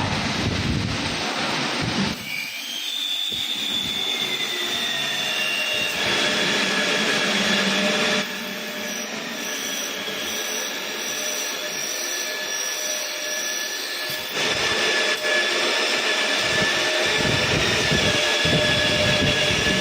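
Glass drilling machine running: a steady motor whine over a grinding hiss. The sound changes abruptly several times, as if between separate takes.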